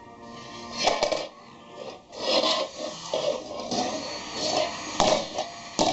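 Lids scraping and rubbing across a floor, with irregular clattering and a few sharp knocks, about a second in and twice near the end.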